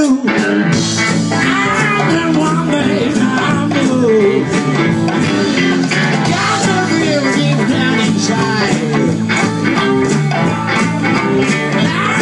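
A live band playing with electric guitar, saxophone and drums, keeping a steady beat.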